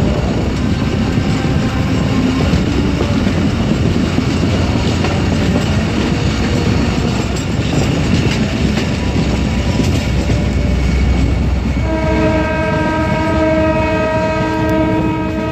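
Passenger train running on the rails, heard from on board: a steady rolling noise with wheel clatter. About twelve seconds in, a train horn starts one long, steady, multi-tone blast.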